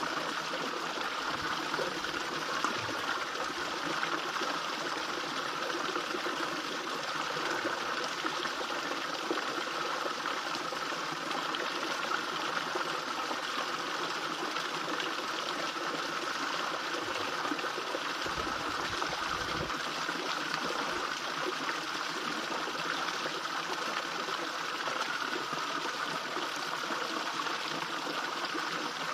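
Small garden fish-pond waterfall: a steady splashing trickle of water falling into the pond.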